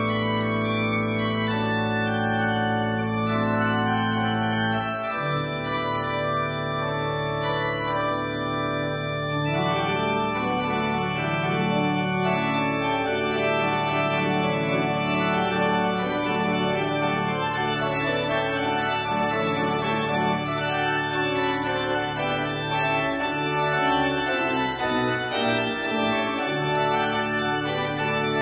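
Pipe organ playing full, sustained chords over a held bass. The bass shifts about five seconds in, and faster-moving lines join from about ten seconds in.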